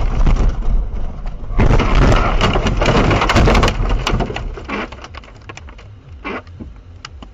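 A car crashing off a snowy road into snow and trees: a burst of loud crunching, scraping and banging, loudest from about one and a half seconds in, dying down after about four seconds to scattered knocks.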